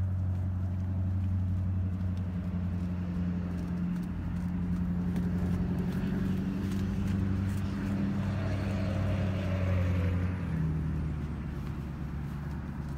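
A motor vehicle engine running steadily with a low hum, which shifts slightly about four seconds in, then drops and fades after about ten seconds.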